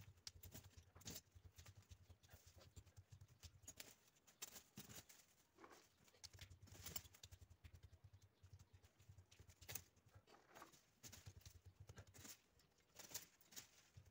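Faint, irregular crackling and rustling of dry twigs and leaf litter being gathered and handled by hand at the foot of a pruned pomegranate tree.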